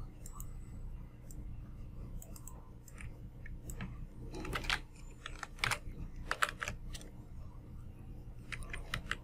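Computer keyboard and mouse clicks, scattered irregular taps, over a low steady hum.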